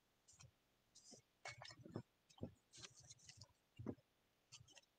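Near silence with a few faint, scattered clicks and short rustles.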